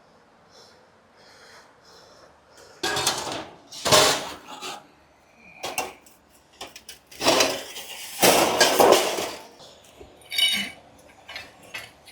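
Metal hardware and tools clattering and clinking as they are handled and dropped. There are loud, irregular bursts about three to four seconds in and again around seven to nine seconds in, with lighter clinks between.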